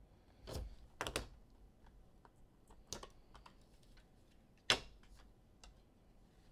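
A card box being opened and clear plastic card holders handled: scattered light clicks and rustles, with one sharper plastic click about three-quarters of the way through.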